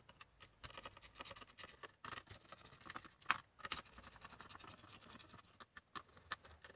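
Faint scratching and small irregular clicks of a screwdriver and fingers working the screws out of a laptop motherboard's metal heatsink.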